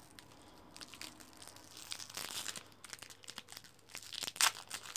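Plastic wrapper of a large lollipop crinkling and crackling in irregular bursts as it is bitten and pulled at in the struggle to tear it open, the busiest stretches about two seconds in and near the end.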